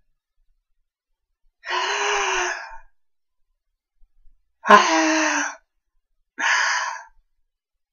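A man's voice: three loud, breathy gasping sounds, each under about a second, the second one starting with a sharp click.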